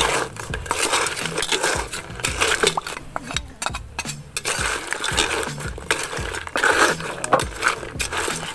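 A cooking utensil clinking and scraping against a pan as crabs are stirred in black pepper sauce, an irregular clatter with a brief lull midway.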